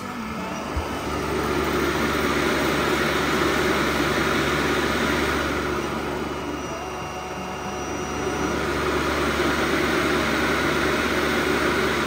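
ECOVACS DEEBOT N20 PRO PLUS cyclone dust-collection station running, sucking the dirt out of the docked robot vacuum's bin into its tank. A steady rush of air over a motor hum, easing off slightly around the middle and rising again.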